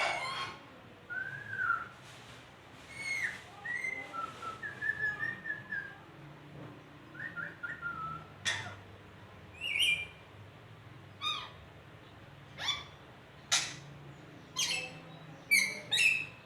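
A pet nuri parrot (lory) calling. Scattered whistled notes glide up and down at first, then louder, short, sharp calls come about once a second through the second half.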